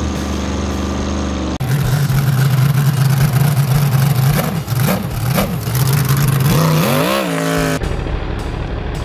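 Music, cut off about a second and a half in by a jet boat's engine running hard through open exhaust pipes. Its pitch dips and comes back up a couple of times, then climbs in a rising rev before the music cuts back in near the end.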